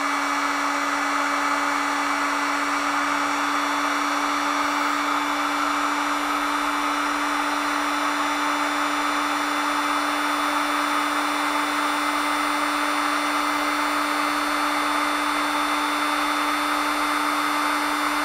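Electric heat gun running steadily, its fan motor humming at a constant pitch over a strong rush of blown air.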